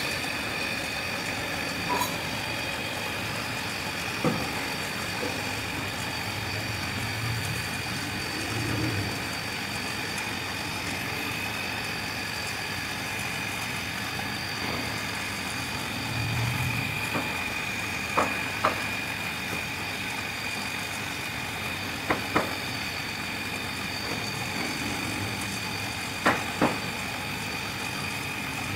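Wood lathe running steadily with a constant high motor whine as the turned wood spins. Several pairs of sharp clicks come in the second half.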